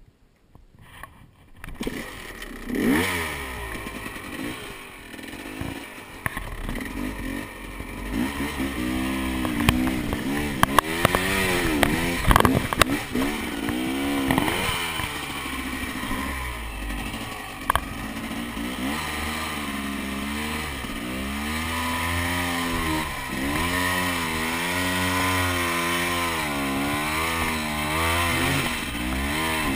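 Hard-enduro motorcycle engine revved in short repeated bursts, the pitch rising and falling over and over as the bike is worked slowly up bare rock. A few sharp knocks cut through the engine sound midway.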